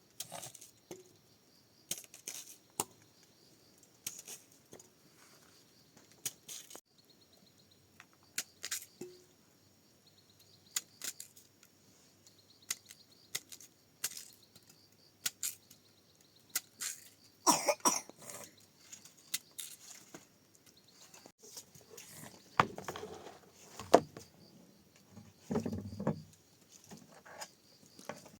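Irregular knocks, clicks and clatter of objects being handled, busiest a little past halfway, with a sharp knock near the end. Insects chirr faintly and steadily underneath.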